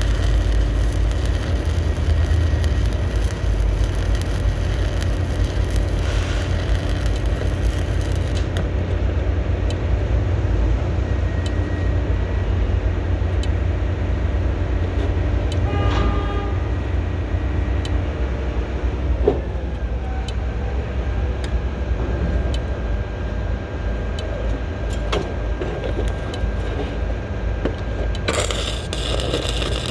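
Stick (shielded metal arc) welding with a 7018 rod: the arc crackles and sizzles for about eight seconds, then stops, and strikes up and crackles again near the end. Under it a steady low rumble of machinery runs throughout, with a short beeping tone about halfway.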